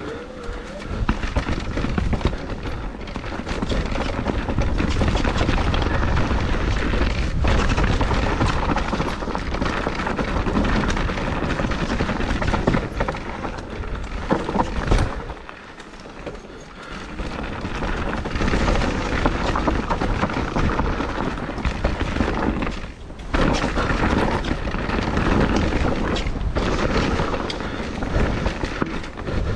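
Mountain bike ridden fast down a rough trail: wind buffeting the on-bike or helmet camera's microphone as a heavy rumble, with tyre noise and frequent knocks and rattles from the bike over roots and rocks. The noise drops away briefly twice, about halfway through and again a little later.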